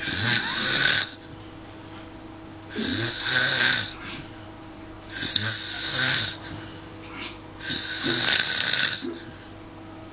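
A person snoring, four long snores about every two and a half seconds, with quieter breathing between them.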